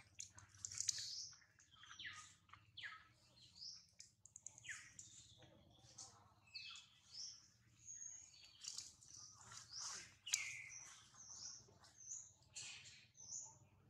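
Small birds chirping faintly: a busy run of short high chirps, quick falling notes and brief whistles.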